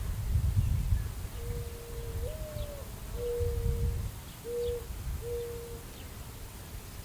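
Mourning dove cooing: one long note that lifts and falls, then three shorter coos, over gusty wind rumbling on the microphone. Other small birds chirp faintly.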